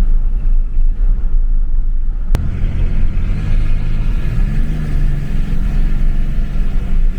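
A 5.9 Cummins inline-six turbo-diesel running, its revs rising about halfway through, with the Holset turbo's high whistle spooling down and then back up. The whistle comes through an unmuffled Cool Hose intake hose that replaces the factory air muffler. A single sharp click a little over two seconds in.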